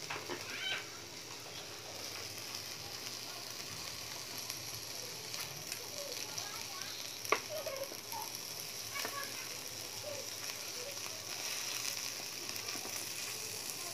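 Slices of meat and fish sizzling on a hot electric grill plate, a steady frying hiss. Plastic tongs give scattered clicks and taps against the plate, the sharpest a little past halfway.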